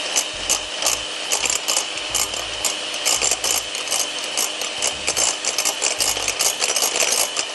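Electric hand mixer running at speed, beating eggs in a glass bowl, with a steady motor whine and rapid, irregular clicking as the metal beaters knock against the glass.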